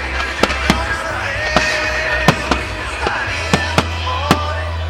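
Fireworks display: about eight sharp bangs of exploding shells at irregular intervals, with music playing underneath.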